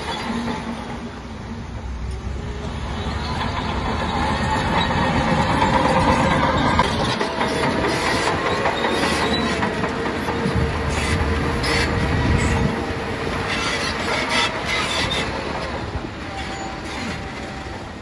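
Crawler bulldozer at work: the diesel engine runs under load while the steel tracks clank, with a steady squeal through the middle. A string of sharp metal clanks comes from about eight to fifteen seconds in.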